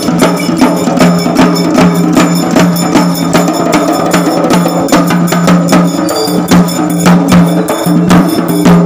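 Barrel drums beaten with sticks in a fast, driving rhythm of several strikes a second, over a steady low tone.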